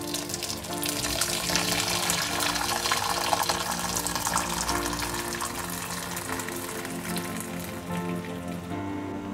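Water pouring steadily from a kettle into a stainless steel pot, stopping just before the end, over background music.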